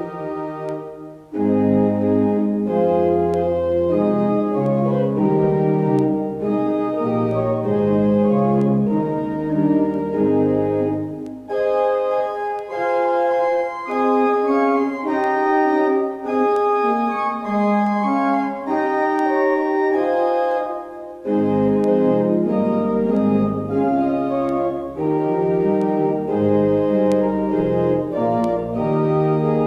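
Organ music: held chords that change about once a second, with the low bass notes dropping out for a stretch in the middle and coming back in.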